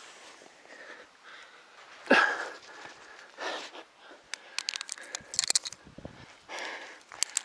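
A climber's hard breathing, with forceful exhales about two seconds in, again a second and a half later and near the end. In the middle comes a quick run of light metallic clicks and jingles from carabiners and quickdraw gear.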